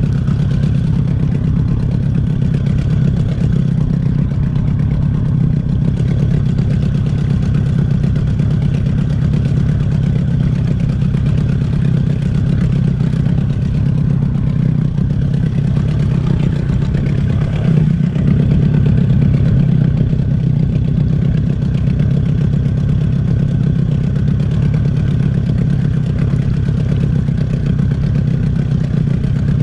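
Boat's outboard motor running steadily at low trolling speed, a constant low drone.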